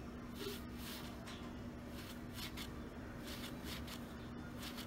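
Faint, irregular rustling, several soft hisses a second, over a steady low hum. No party horn is blown.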